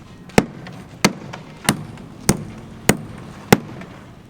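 Hammer blows: six sharp strikes, evenly spaced about two-thirds of a second apart.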